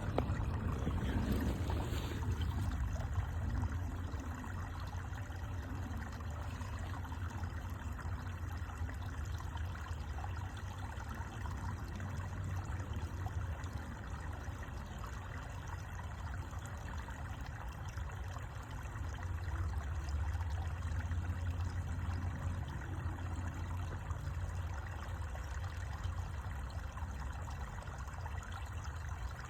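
Water trickling and flowing steadily, with a continuous low rumble underneath.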